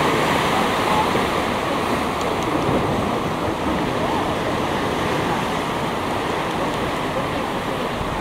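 Ocean surf churning and foaming, a steady rush of breaking water.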